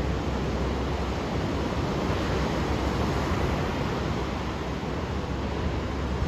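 Ocean surf washing steadily on the shore, an even rushing noise with a deep low rumble underneath.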